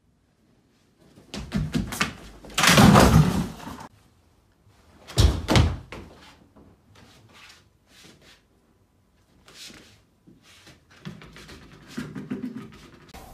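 Thuds and clattering knocks from a bulky mascot costume hitting a high-jump bar and floor mats. The loudest is a crash about three seconds in. Lighter taps and bumps follow, with a toy basketball hitting the floor near the end.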